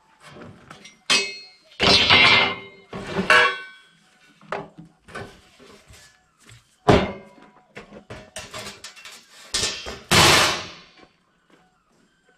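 A thin sheet-metal panel flexing and rattling as it is lifted, stood up and laid onto a welded steel tube frame, with six or so loud clattering, briefly ringing bursts and smaller knocks between them.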